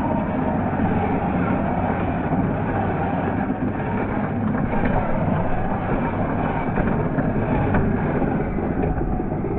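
Small-scale RC crawler driving over loose rocky dirt: a steady motor and drivetrain noise, with scattered light clicks of its tyres on gravel.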